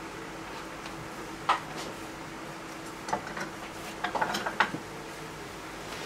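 A few light clicks and clinks, like small hard objects tapping together, one about a second and a half in and a quick cluster past the middle, over a steady low room hum.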